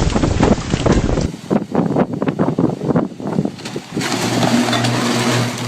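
Strong gusting wind buffeting the microphone in loud, choppy bursts, with a sudden change in character about a second in. Near the end a steadier rush with a low hum takes over.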